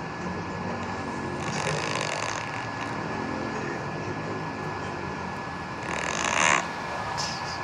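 A sleeping cat snoring: two raspy breaths about four seconds apart, the second, near the end, louder, over a steady low rumble.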